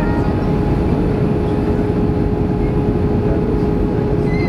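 Inside an Airbus A319's cabin on its descent: the steady roar of engines and airflow heard from a window seat over the wing, with a steady hum tone running through it.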